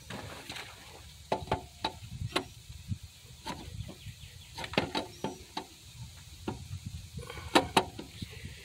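Alternator being handled and worked into its mounting bracket: irregular light metallic clicks and knocks as the housing bumps against the bracket and nearby engine parts, with two sharper knocks close together near the end.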